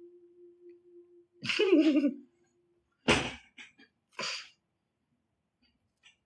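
A man laughing: a loud, warbling laugh about a second and a half in, then sharp, breathy bursts of laughter about three and four seconds in. A faint steady hum stops just before the laugh.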